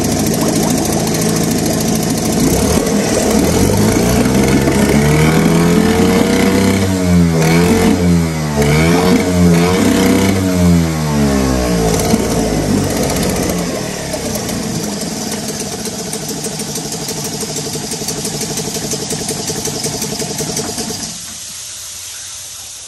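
Small Yamaha 3 hp outboard motor running, revved up and down in several quick swells, then settling to a steadier run and stopping near the end.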